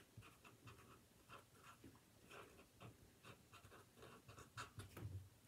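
Faint pen strokes on paper, short scratches in quick irregular succession as a name is written out.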